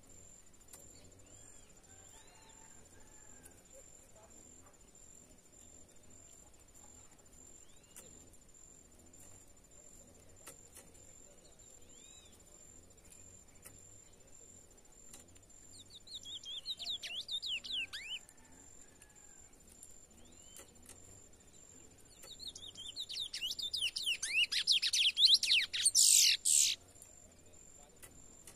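Young male curió (chestnut-bellied seed finch) in brown 'pardo' plumage singing in two bursts of rapid whistled notes: a short phrase about halfway through, then a longer, louder one near the end that builds and stops abruptly. A steady high insect whine runs underneath.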